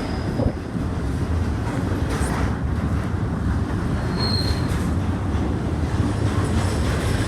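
A train rolling past, its wheels and cars making a steady low rumble on the rails, with a brief high-pitched wheel squeal about four seconds in.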